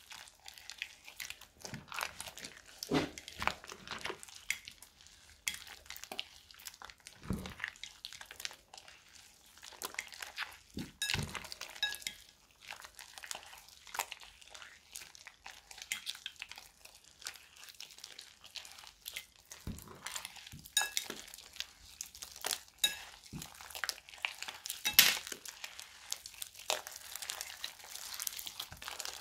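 Wet slime mixed with plastic bag pieces and small balls being kneaded and squeezed by hand: irregular crinkling and crackling with wet squelches, and a few louder snaps.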